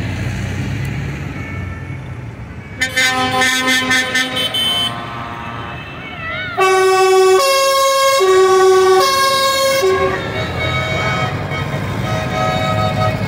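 Lit-up tractors passing with their engines running, and horns sounding over them: a quick run of choppy toots about three seconds in, then from about halfway a loud horn sounding several different notes in turn for about three seconds.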